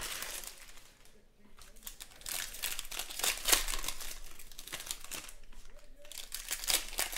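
Foil wrapper of a Panini Prizm football card pack crinkling and tearing as it is pulled open by hand, loudest about halfway through, with more crinkling near the end.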